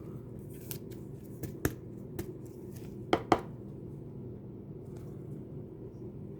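Trading cards being handled and set down: a few light clicks and taps, the loudest a quick double tap about three seconds in, over a steady low hum.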